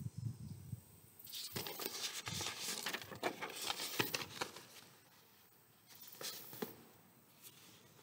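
Sheets of printer paper rustling and crinkling in the hands as a page is turned over, for about three seconds, followed by a few shorter crinkles about six seconds in.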